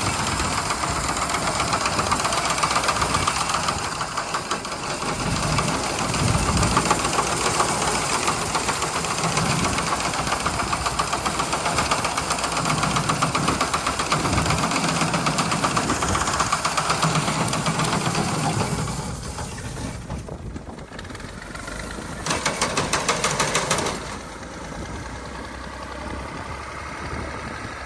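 Diesel tractor engine running steadily with a reaper machine. About 19 seconds in the sound drops away, comes back louder for a couple of seconds, then falls quieter again.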